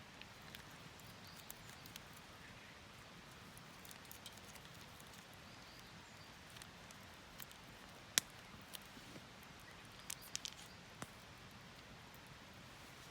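Faint, scattered light clicks and taps over a quiet background hiss, with one sharper click about eight seconds in and a quick cluster of clicks about ten seconds in.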